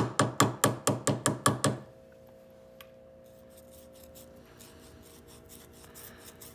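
Brass hammer tapping the bent lip of a Honda CB350 carburetor slide held in a bench vise: about eight quick, light blows, four or five a second, each ringing briefly, flattening the edge back out. The tapping stops about two seconds in and faint scratchy rubbing follows as the edge is sanded smooth.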